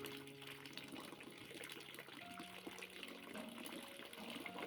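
Water running steadily into a container as it is filled, with faint held tones underneath.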